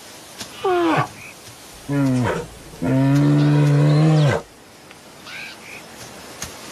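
An animal calling three times in low, drawn-out, pitched calls, each dropping in pitch at its end; the third, about a second and a half long, is the longest and loudest.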